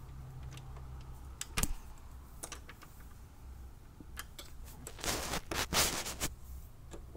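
Keys clicking and jangling, then a loud patch of scraping and jingling for just over a second near the end as a key is pushed and jiggled in a brass doorknob's lock cylinder.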